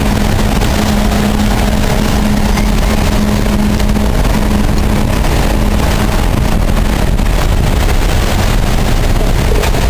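Cars driving slowly through a flooded road, engines running and tyres pushing through standing water, making a steady rushing noise with a low hum that comes and goes.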